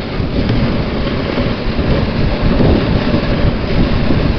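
Dog sled running over packed snow: a loud, continuous rumble and scrape from the runners, dense at the low end with irregular bumps.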